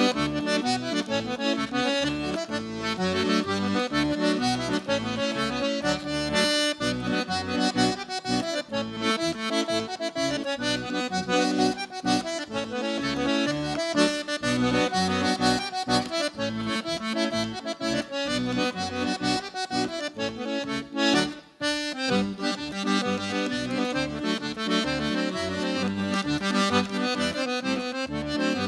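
Piano accordion played solo, an instrumental tune on the treble keys over a steady rhythm of bass notes from the left-hand buttons, with a brief break about three-quarters of the way through.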